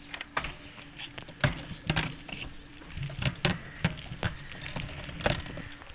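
Irregular clicks, knocks and rattles over a low rumble, from a bicycle being ridden with a phone held on it; the loudest knocks come about one and a half and two seconds in and again near the end.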